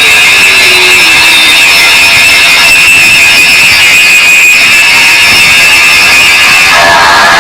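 Live harsh noise music at full loudness: a dense wall of noise with steady high whines, and a tone sliding downward in the first second or so. The high whines drop away near the end.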